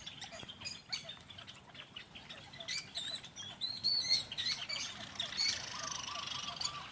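A mixed flock of small birds chirping and twittering, with warbling high calls in the middle and a run of evenly repeated notes near the end.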